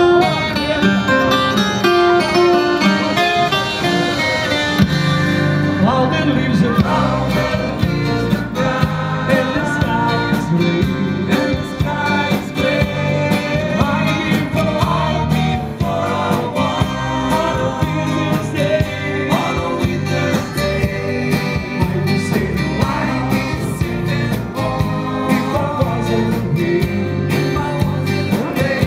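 Live band playing: acoustic and electric guitars strumming over a drum kit, with a man singing into a microphone.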